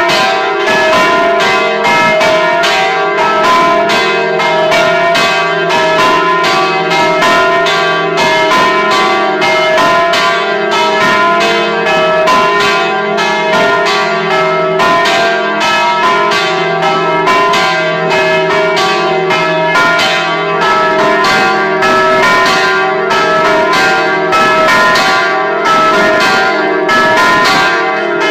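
Several bronze church bells swinging and ringing together at close range, driven by electric linear motors in synchronised Lucchese-style ringing. The clapper strokes overlap several times a second, and the bells' tones ring on continuously between them.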